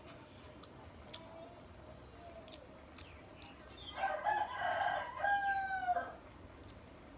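A rooster crowing once, starting about four seconds in and lasting about two seconds, ending on a long held note that cuts off.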